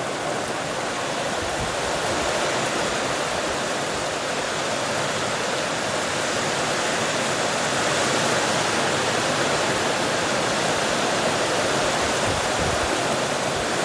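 Heavy rain pouring down steadily, a dense even hiss, getting harder.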